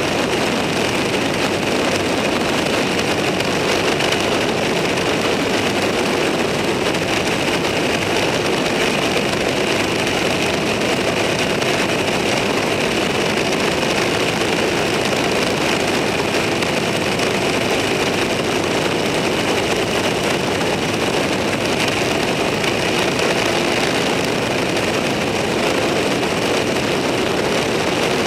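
Steady engine, wind and road noise of a vehicle cruising at an even speed, without gear changes or revving.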